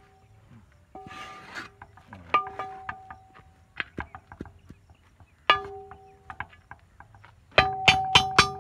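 Metal spatula stirring rice in a large metal cooking pot, scraping and knocking against its sides so that the pot rings after each knock. A quick run of knocks comes near the end.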